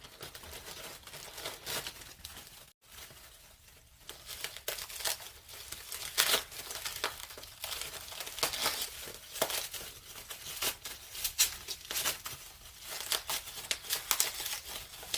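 Plastic bag and bubble wrap crinkling and tearing as they are pulled off a wrapped item by hand, in irregular rustles that get busier about four seconds in.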